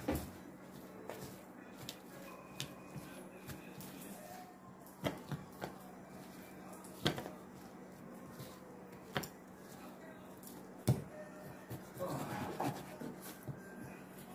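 Raw pork belly pieces and gloved hands knocking on a plastic cutting board: a handful of sharp taps a second or two apart, over a faint steady hum.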